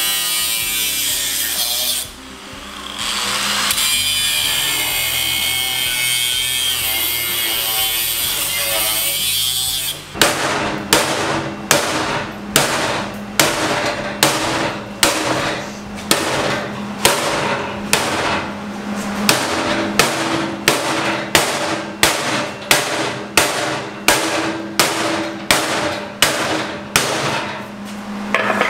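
Angle grinder with a cutting disc grinding through rusty steel, easing off for a moment about two seconds in. About ten seconds in the grinding stops and music with a steady beat, about one and a half beats a second, takes over.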